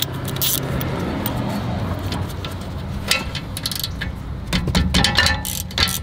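Ratchet driving a 7 mm Allen socket to loosen a BMW rear brake caliper bolt: scattered sharp metallic clicks, thickest in a quick run near the end.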